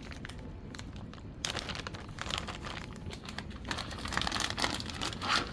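Plastic packaging crinkling as a new air filter and cover are unwrapped by hand: a few light clicks at first, then dense crinkling and rustling from about a second and a half in.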